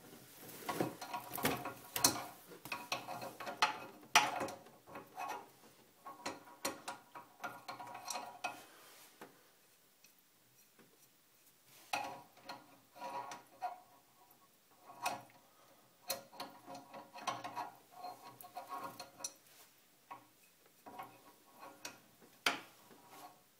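Spanner working a metal fitting on a bidet's flexi hose and diverter valve, tightening the connection: irregular clicks and small metallic clinks in clusters, with two short pauses.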